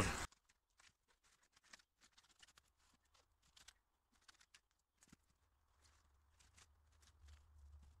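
Near silence, with faint scattered crackles of plastic stretch film being unrolled and wrapped around tree trunks.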